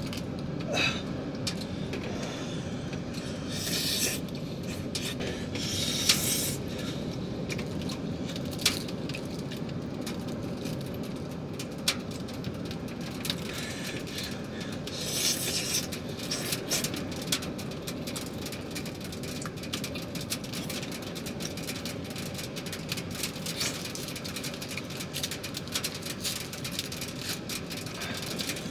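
Rain falling on the panel van's roof: a steady patter with many scattered sharper taps and a few brief hissing swells.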